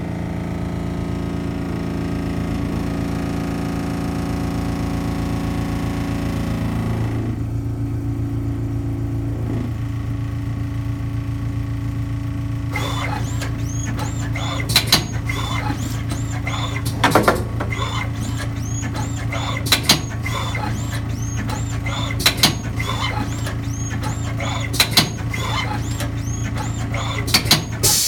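Automatic pre-roll joint-making machine running with a steady motor hum. From about halfway on, it gives a sharp double clack about every two and a half seconds, six times, as it cycles through rolling joints.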